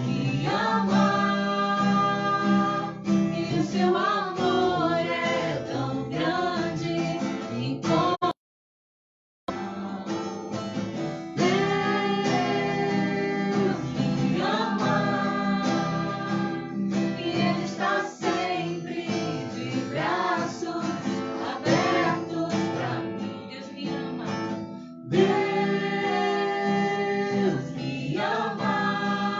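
Worship song: singing over a strummed acoustic guitar. The sound cuts out completely for about a second partway through, then the song resumes.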